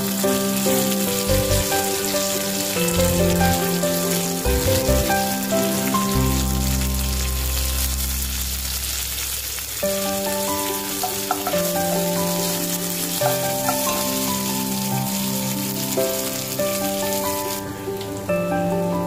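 Hot oil sizzling and frying in a pan as curry leaves and grated ginger are tempered with dals and mustard seeds, over background instrumental music. The sizzle dies down near the end.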